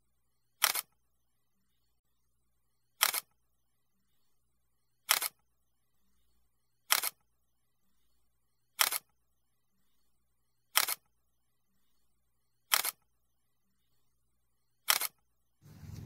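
Camera shutter click sound effect, eight times about every two seconds, each a quick double click. A steady low rumble starts near the end.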